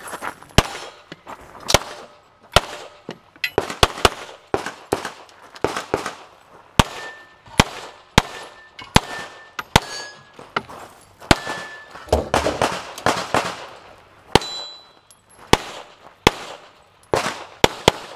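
CZ SP-01 Shadow pistol fired in quick strings of shots with short pauses between them. A few shots are followed by a brief, thin ringing tone.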